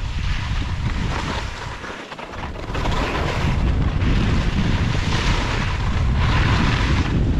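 Skis hissing and scraping over snow during a downhill ski run, swelling and fading in waves with the turns, under heavy wind buffeting on the microphone. The noise dips briefly about two seconds in.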